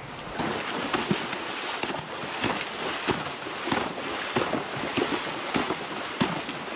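Horses wading through a rushing mountain stream: steady water noise with irregular splashes of hooves striking the water, roughly every half second.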